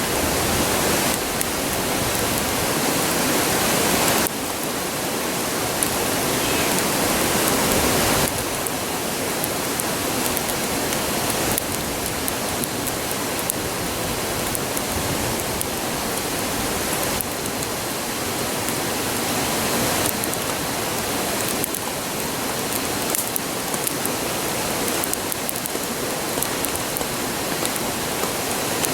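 River rushing steadily, a constant even roar of flowing water, with a few faint small crackles from the campfire.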